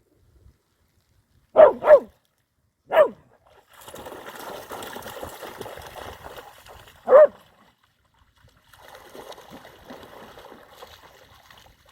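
Dogs barking at play: two quick barks, another a second later, and a single bark about four seconds after that, with softer rustling noise in the gaps.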